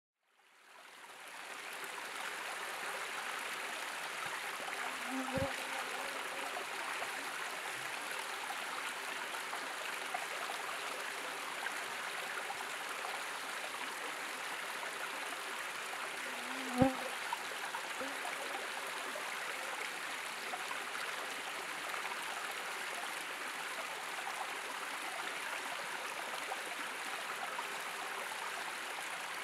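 A small rocky forest stream running steadily, fading in at the start. There are two short knocks over the water sound, one about five seconds in and a louder one about eleven seconds later.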